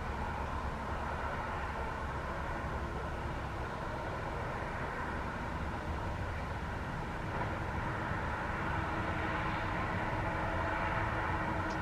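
Jet engines of a Boeing 737 MAX (CFM LEAP-1B turbofans) running: a steady rumble with a held whine, growing a little louder about eight seconds in.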